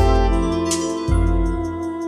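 Instrumental background music: held notes over a low bass line, with a new chord coming in about a second in.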